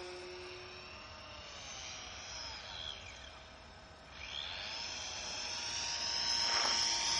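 Engine and propeller of a radio-controlled scale model of a Mitsubishi J2M3 Raiden in flight, a buzzing whine whose pitch slides up and down as it passes and turns. It is faintest about four seconds in, then grows steadily louder as the plane comes closer.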